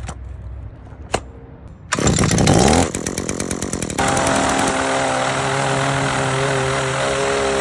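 ECHO PAS-2620 two-stroke powerhead driving the Pro Paddle sweeper. After a couple of clicks, the engine comes in abruptly about two seconds in and revs up. From about four seconds it runs steadily at high speed.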